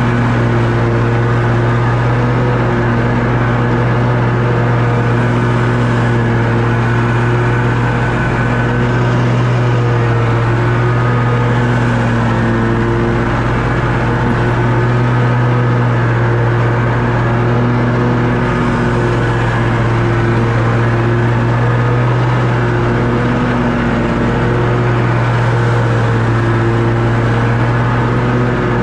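Toro Grandstand stand-on mower's engine running steadily at a constant high speed while mowing grass.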